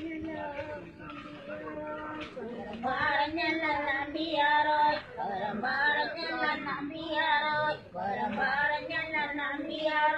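Women singing a njattupattu, the Malayalam rice-transplanting work song, in phrases with short pauses between them; the singing grows louder about three seconds in.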